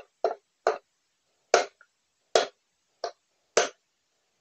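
Hammer blows driving a new ball bearing into a Hero Splendor Plus motorcycle's front wheel hub: seven sharp metal knocks, quick at first, then slower, with some of the later blows the loudest.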